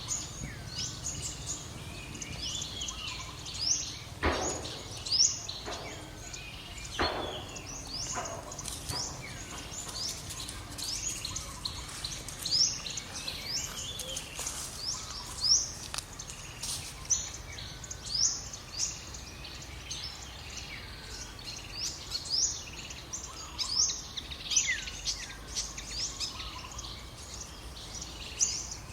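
Birds chirping: many short, high, sweeping calls repeat throughout over a steady low background rumble. Two brief, louder, full-range noises come about 4 and 7 seconds in.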